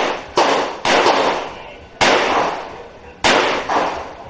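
Revolver shots fired during a timed shooting stage: five shots in irregular spacing, a quick pair, a single shot, then another quick pair, each with a short ringing echo.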